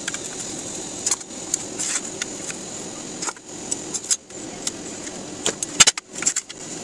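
Clicks and knocks of an open aluminium power-supply case being handled and turned over on a tabletop, with a cluster of louder knocks near the end.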